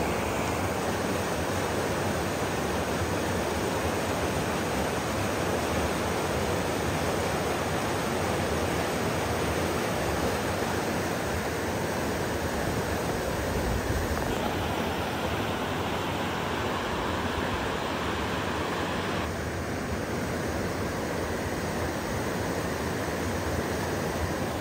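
Steady rush of a fast mountain river running over rocky rapids.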